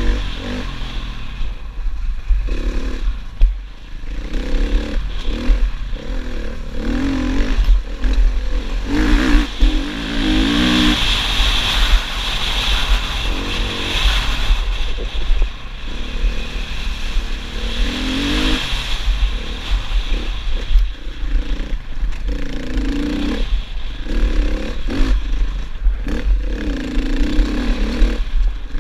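Husqvarna FE 450's four-stroke single-cylinder engine pulling hard at racing speed, its revs rising and falling again and again. Under it is a constant heavy low rumble of wind on the camera microphone.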